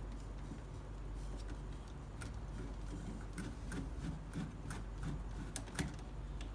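Scattered light clicks and knocks of plastic toy-telescope parts being handled and adjusted, the sharpest knock near the end, over a steady low hum.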